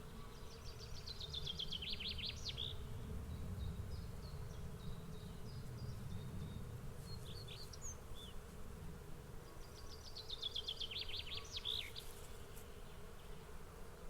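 A swarm of bees buzzing steadily. A bird sings a quick, high trilled phrase twice, about half a second in and again about ten seconds in, with a few scattered chirps in between.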